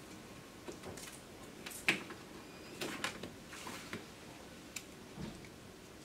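Faint handling noises: a few light clicks and soft rustles as an Arduino circuit board is picked up off a desk and turned over in the hands.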